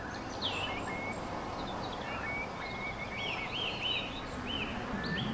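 Songbirds chirping: a run of short, high notes, some dropping quickly and some arched, repeated through the moment over a steady background hiss of outdoor ambience.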